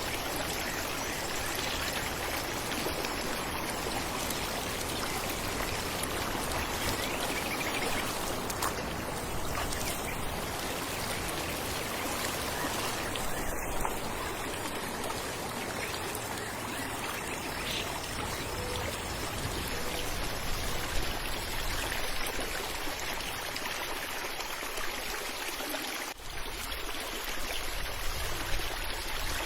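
Falling water running steadily: an even rush with small splashy flickers, and a momentary drop in level near the end.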